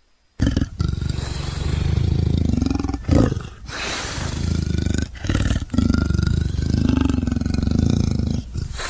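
Big-cat roar sound effect made to voice the extinct cat Panthera shawi: a series of long, deep, rumbling roars and growls starting about half a second in, with brief breaks near three and five seconds.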